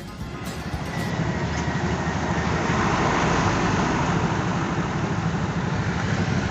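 A truck engine running steadily with a dense rumble, growing louder over the first two seconds and then holding steady.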